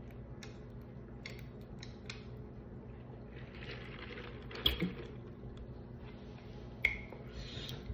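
Light clicks and small handling noises while a large foam drink cup is sipped from and moved, with a sharper knock about four and a half seconds in and another near seven seconds, over a low steady room hum.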